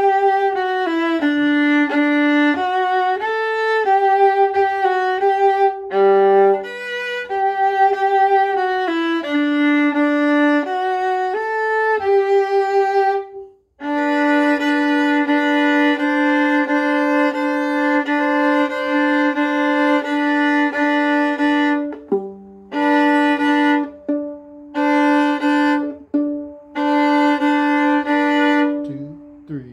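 Solo violin playing a simple lesson duet part in bowed notes. After a short pause about 13 seconds in, it starts again with long, repeated notes on one low pitch, with brief breaks between phrases near the end. This fits the duet's bottom part played first and its top part second.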